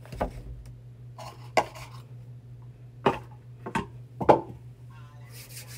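About five sharp clicks at irregular spacing, roughly a second apart, over a steady low hum.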